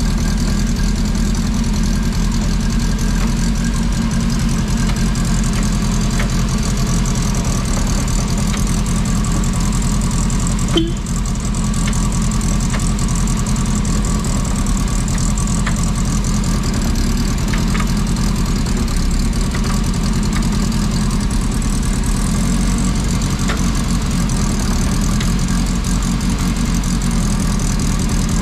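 Turbocharged Ford Zetec four-cylinder engine idling steadily, with no revving, and a single short click about eleven seconds in.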